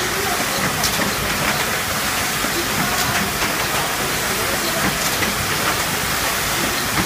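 Factory packaging line with a delta robot running: a steady machinery hiss with irregular light clicks.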